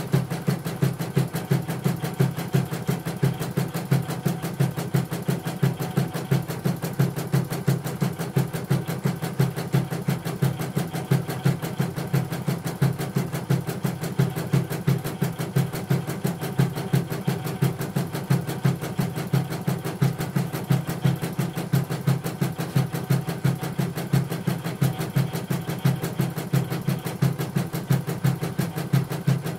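CNY portable embroidery machine stitching out a design, its needle mechanism running at a steady, even rhythm as the hoop steps along. This is the test stitch-out after its mainboard, LCD and touchscreen were replaced, and it runs without trouble.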